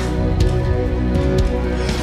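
Instrumental worship music between sung lines: held keyboard chords over a steady bass, with light percussion ticks.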